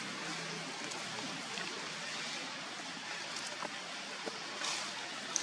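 Steady outdoor background hiss with no clear source, with a few faint ticks in the second half.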